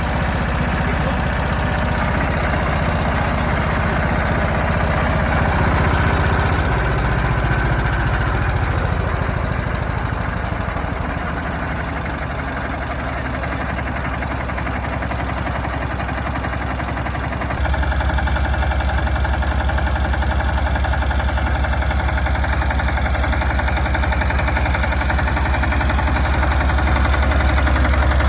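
Jiangdong JD300 single-cylinder diesel running steadily with a low, even knock. Its sound shifts about a third of the way in and turns suddenly louder and deeper about two-thirds through.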